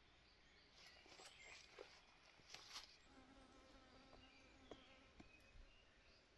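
Near silence, with faint scattered ticks and then a faint steady insect-like buzz lasting about a second and a half around the middle.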